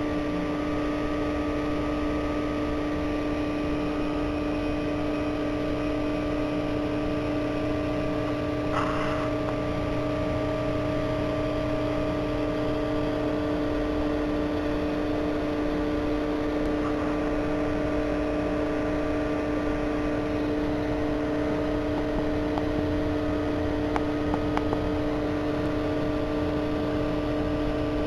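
Steady electrical hum of an aquarium pump, several fixed tones over a low rumble, unchanging throughout.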